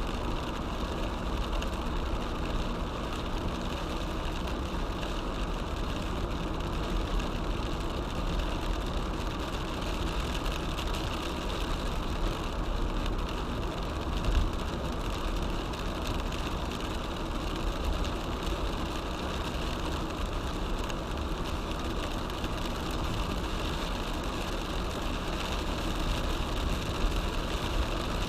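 Car driving in heavy rain, heard from inside: a steady mix of engine, wet-tyre and rain noise, with a single short bump about halfway through.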